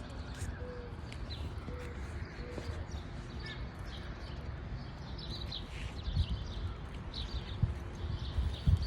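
Wild birds chirping and calling at intervals, with a few short whistled notes, over a steady low rumble of wind on the microphone that gusts louder from about six seconds in.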